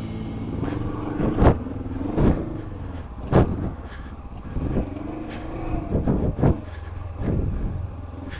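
Honda CB500X's 471 cc parallel-twin engine riding off road, its revs rising and falling repeatedly. Sharp thumps come about once a second.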